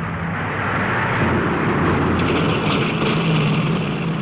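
A car engine running as the car drives along, with steady road and engine noise that grows louder about a second in.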